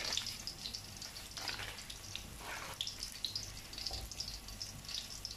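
Faint crackling sizzle of rice and beef cooking in a metal pot on a gas stove, with scattered small ticks over a steady low hum.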